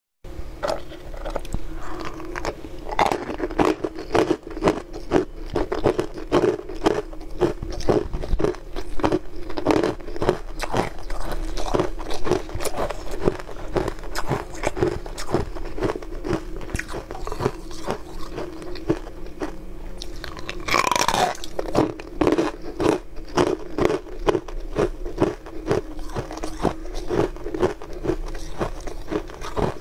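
Frozen ice pieces bitten and crunched close to the microphone, a fast, uneven run of crisp cracks and chews, over a steady low hum. A short falling squeak cuts in about two-thirds of the way through.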